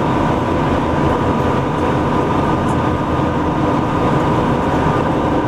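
Tugboat's diesel engines running steadily while it tows a container ship on a taut line: a dense, even low rumble with a steady hum over it.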